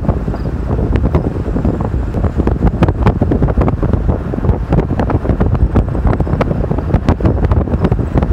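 Strong wind buffeting the microphone: a heavy, low rumbling rush broken by constant crackling gusts.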